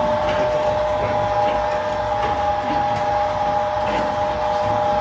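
Silk-reeling machine running with a steady motor whine, drawing the fibres from cocoons in hot water into one strand.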